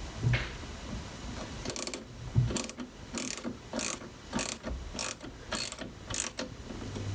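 A hand tool worked in quick, repeated rasping strokes, about two a second, for around four and a half seconds, with a few soft knocks before them.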